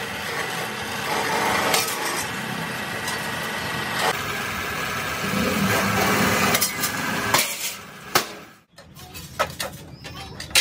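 Electric-motor-driven mechanical sheet-metal shear running, its blade cutting steel sheet with a sharp clank every couple of seconds. Near the end the machine noise stops and loose steel plates clank as they are handled.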